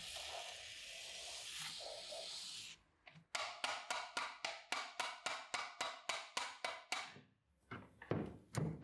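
Hand work on a rusty manual knife sharpener: a steady hiss for about three seconds, then some twenty quick brushing strokes at about five a second. Near the end come a few dull knocks as the cover is lifted off the gear housing.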